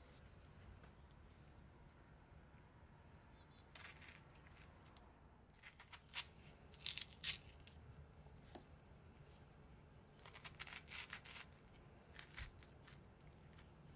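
A metal spoon scraping and scooping the flesh out of a halved raw potato, in quick bursts of short, sharp scraping strokes that start about four seconds in.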